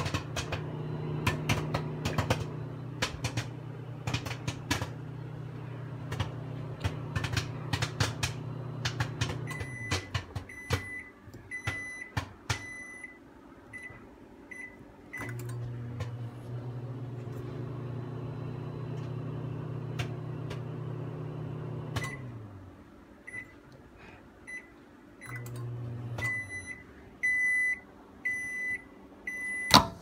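Samsung microwave oven humming with a bag of popcorn popping inside, the pops coming thick and fast for the first several seconds. The oven then stops and its keypad beeps a number of times. It runs again for several seconds, then briefly once more, and beeps repeatedly near the end.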